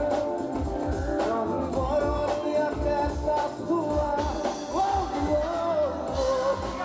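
Live band playing a song: a singer's voice over a drum kit with a steady beat, electric guitar and keyboard.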